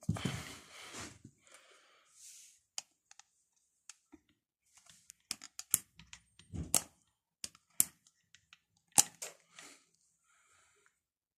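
Handling of a Sturm AG9012TES angle grinder that is not running: a brief rustle, then a series of sharp, separate plastic clicks and knocks as its body and wheel guard are picked up and turned.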